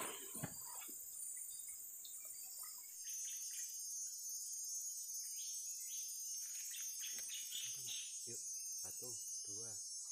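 Steady high-pitched drone of insects in riverside forest, growing stronger about three seconds in. In the last few seconds a series of short, low, voice-like calls repeats several times over it.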